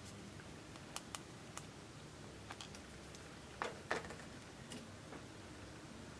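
Slime being handled, giving a scattering of soft clicks and pops, with two louder pops close together a little past the middle.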